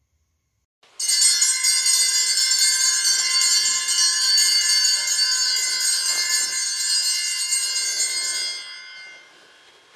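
A cluster of small altar bells shaken and jingling continuously, starting suddenly about a second in and ringing for about seven seconds before dying away near the end. This is the bell that signals the priest's entrance at the start of Mass.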